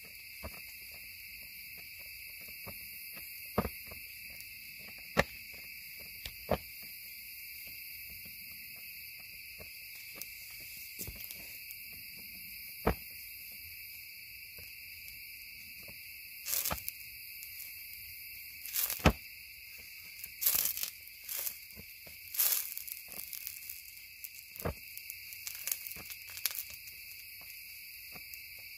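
Burning magnesium shavings on a wet fire crackling and spitting with sharp pops, a few at first and then thick clusters through the second half, as drops of water make the molten magnesium spark. Crickets trill steadily in the background.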